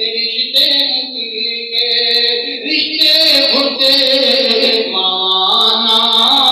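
A man's voice chanting into a microphone in long, held melodic notes, carried over a loudspeaker.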